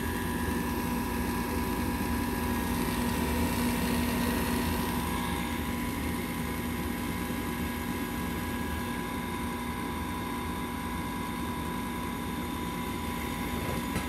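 Gas furnace's draft inducer fan motor running with a steady hum at start-up, while the new hot surface ignitor heats up.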